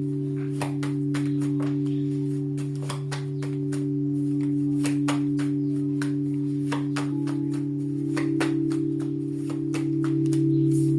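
Background drone music held on a few steady low tones, one of them shifting about seven seconds in, under frequent irregular light clicks.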